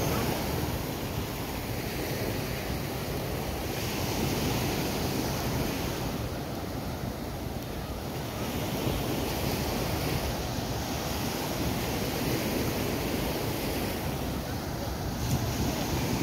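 Surf washing onto a sandy beach, surging every few seconds, with wind buffeting the microphone.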